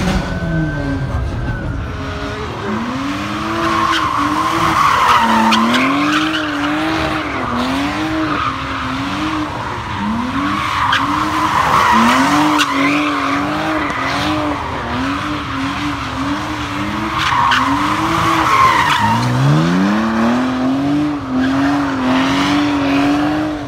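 Car engine revving hard, its pitch rising and dropping about once a second as the driver works the throttle through donuts. Three long stretches of tire squeal run through it. Near the end the revs climb from low to a steady high pitch.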